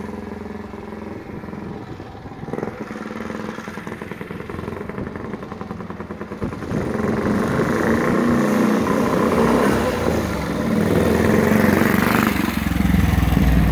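Single-cylinder 350cc four-valve Rudge engine of a 1920s grasstrack motorcycle running as the bike is ridden, distant at first and growing louder from about halfway as it comes past close by.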